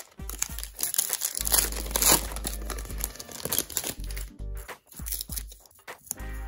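Wrapper of a 2009-10 Upper Deck Series 1 hockey card pack crinkling and tearing as it is ripped open, loudest about two seconds in, over background music.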